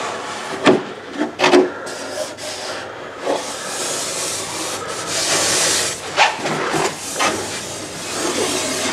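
Handling of Tesla Model S frunk covers and trim parts: a few sharp clicks and knocks in the first two seconds, a longer rubbing, scraping hiss in the middle, and two more knocks later.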